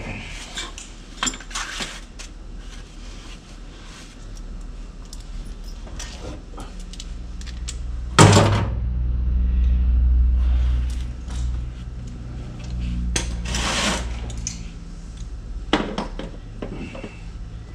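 Metal hand tools clinking and clattering as they are handled and set down, with one loud clank about eight seconds in and a low rumble for several seconds around it.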